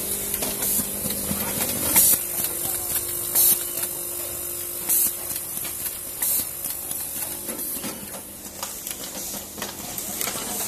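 Compressed air on an automatic screw-fastening machine hissing in four short, sharp blasts about a second and a half apart, over a steady machine hum.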